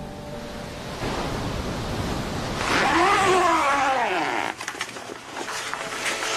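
Steady surf-like wash of noise that swells about two and a half seconds in. At its loudest a single pitched cry rises and falls once, followed by a few faint clicks.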